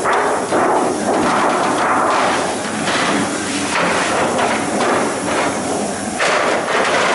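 Offset printing press machinery running with a loud, continuous clattering din and hiss, with irregular knocks, as the plate cylinder turns to feed the old printing plate out.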